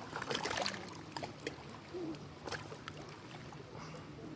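Small waves lapping and splashing at a lakeshore, with irregular little splashes over a steady wash of water. Faint voices carry in the background.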